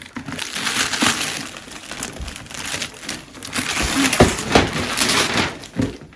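Gift wrapping paper being torn and crumpled, a busy run of rustling with sharp crackles.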